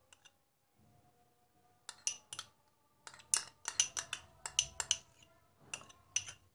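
Metal spoon scraping and clinking against a small glass cup and glass bowl as thick mayonnaise is scooped out. The clinks come in quick clusters of several a second, with short quiet gaps between.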